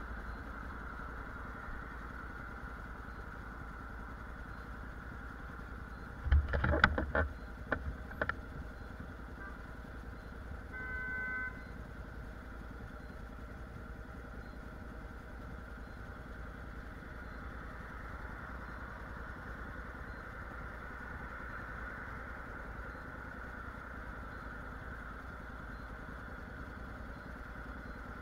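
Honda NC750X's parallel-twin engine idling steadily. A quick cluster of sharp knocks comes about six seconds in, and a short steady tone sounds near eleven seconds.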